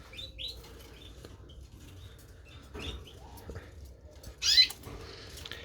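Canaries chirping: scattered short, high peeps, with one louder call about four and a half seconds in.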